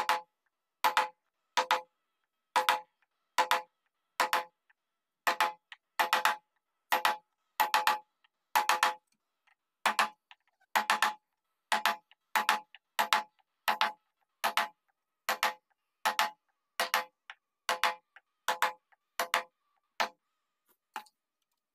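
Wood-carving chisel tapped into a carved wooden panel, a steady run of sharp knocks with a short ring, a little more than one a second. The taps turn faint near the end.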